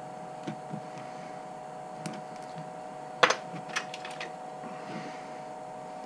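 Handling noises on a workbench: a few light clicks and taps, one sharp, louder click a little past the middle followed by several smaller clicks, over a steady electrical hum.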